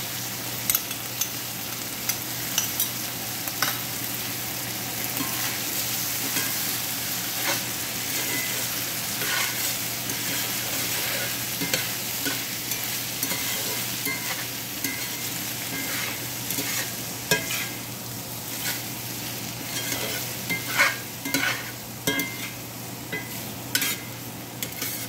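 Rice cake cubes, bean sprouts and chives sizzling in a hot cast-iron skillet with soy and oyster sauce, while a metal spatula stirs and scrapes against the pan with frequent clicks that grow busier near the end.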